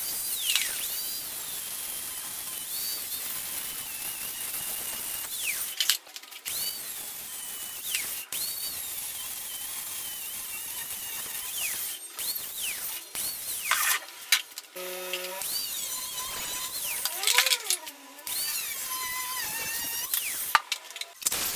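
Angle grinder cutting through steel motorcycle frame tubes: a high motor whine that sags in pitch each time the disc bites into the metal and climbs back as it frees, in several short passes broken by abrupt cuts.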